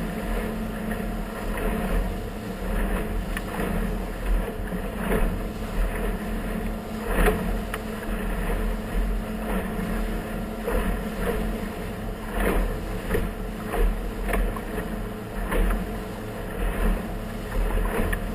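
Motorboat running across choppy water: a steady engine drone, with irregular sharp slaps of the hull hitting the waves every second or so.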